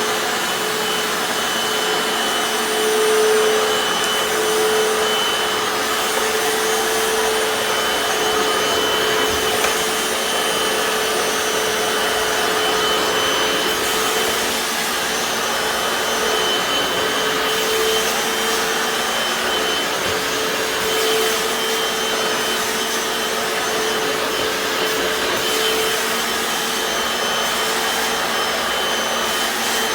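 Hoover FloorMate Deluxe hard-floor cleaner running steadily in wash mode: its motor gives a steady whine over a rushing noise, just after being switched on.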